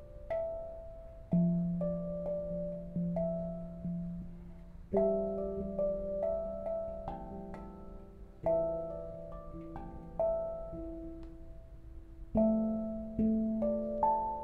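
Handpan of hydro-formed 1.2 mm stainless steel, tuned to a 19-note F Waree scale, played with the fingers. Notes are struck singly and in quick runs, each ringing on and fading, with firmer, deeper notes landing every few seconds.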